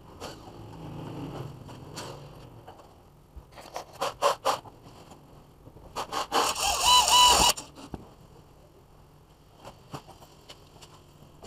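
A handful of sharp clicks, then a cordless drill-driver whining for about a second and a half as it drives a screw through a plastic junction box into the wall.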